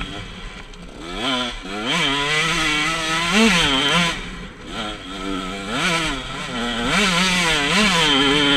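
KTM 125 SX two-stroke single-cylinder motocross engine revving under riding load, its pitch climbing and dropping several times with throttle and gear changes.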